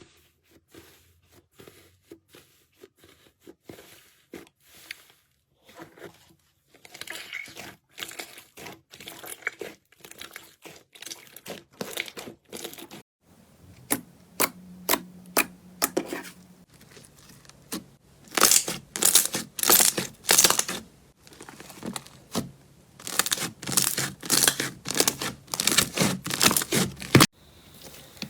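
Slime being worked by hand, giving a run of short, sharp clicks, crackles and popping sounds, several a second. They come in clusters that grow louder and denser in the second half.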